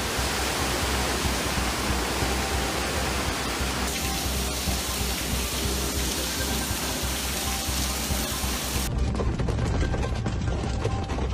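Loud rushing water: floodwater cascading down stairs, with the noise changing abruptly about four seconds in and again about nine seconds in, where it turns duller. Background music runs quietly underneath.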